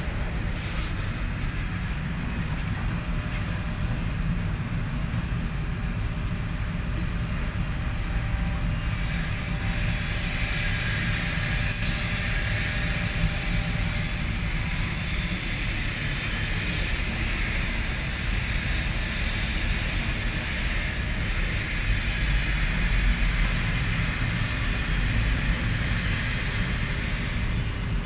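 Heavy diesel construction machinery running steadily with a low engine rumble. A loud hiss joins about nine seconds in and carries on with it.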